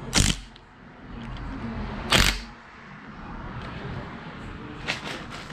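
Cordless impact gun with an extension, run in two short bursts about two seconds apart and a weaker one near the end, snugging down the oil pump bolts on a Honda D16 engine block.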